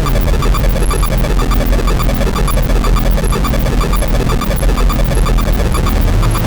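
Dense electronic noise music from DIY electronics: a steady low drone under crackling static, scattered short bleeps and occasional high beeps. A new steady low hum comes in near the end.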